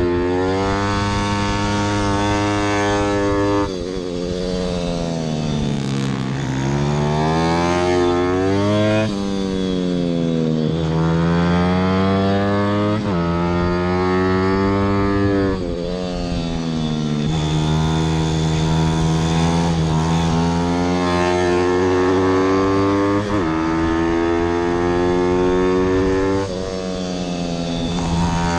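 A 160 cc Zongshen single-cylinder four-stroke pit bike engine at racing revs. Its pitch climbs under hard acceleration with abrupt drops at gear changes, then winds down when the throttle closes for corners, several times over.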